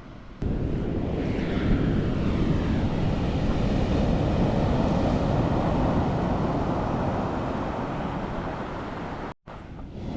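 Wind buffeting the microphone over the sound of surf breaking on a beach. It is a steady, dense rumbling noise that starts abruptly about half a second in and cuts out for a moment near the end.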